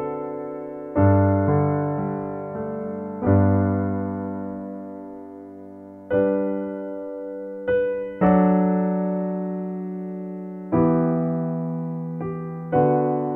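Slow piano music for sleep: chords struck every one to three seconds, each left to ring and fade.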